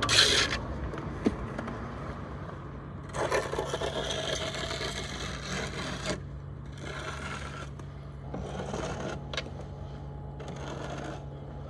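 A wooden straight edge scraped along a pier's fresh sand-and-cement top-coat render, in several rough passes with a couple of sharp knocks, as the render is ruled off. A steady low hum runs underneath.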